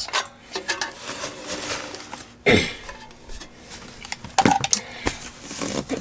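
Two small portable space heaters being picked up and turned around on a rug: a series of clunks and knocks from their housings, the loudest about two and a half seconds in and several more near the end.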